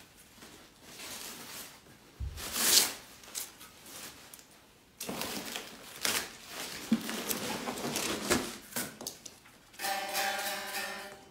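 Packing paper and foam rustling and crinkling as an electric guitar is handled in its shipping box, with a few light knocks. Near the end the unplugged guitar's strings ring briefly as it is lifted out.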